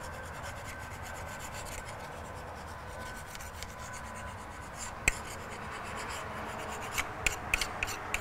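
Hand scraper scraping dried Permatex gasket sealant off the front face of an NV4500 transmission case in steady, repeated rubbing strokes. A sharp click about five seconds in, and a few more near the end.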